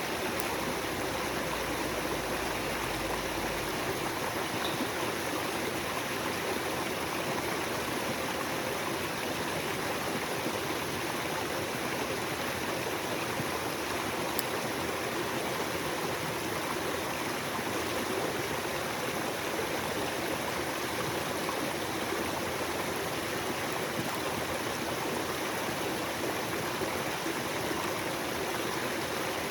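Small stream flowing steadily, with one small click about halfway through.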